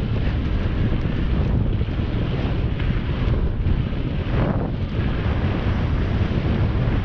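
Wind buffeting the microphone on a mountain bike riding fast down a loose dirt trail, over steady tyre rumble with a few knocks from bumps.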